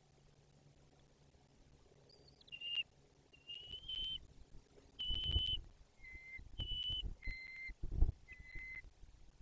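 A bird calling in a series of clear whistled notes, each about half a second long, alternating between a higher and a lower pitch, starting about two seconds in. Low thumps come in between the notes.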